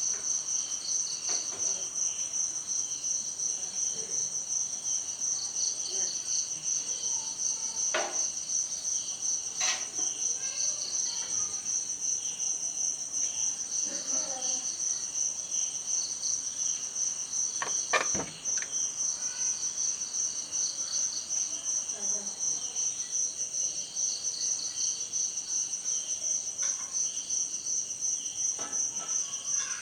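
Crickets chirping in a steady, fast-pulsing high trill, with a few brief sharp clicks; the loudest click comes just past the middle.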